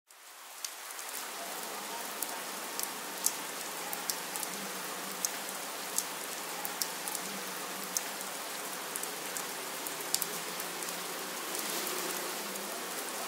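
Steady rain falling, fading in over the first second, with many sharp drop ticks scattered through it.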